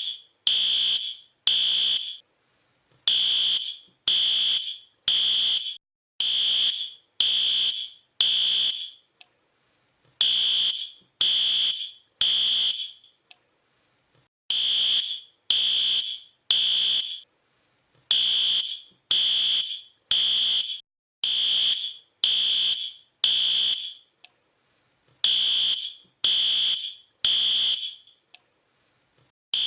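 Fire alarm sounding: a high-pitched electronic beep repeated about once a second, in runs of three or six beeps with pauses of one to two seconds between runs.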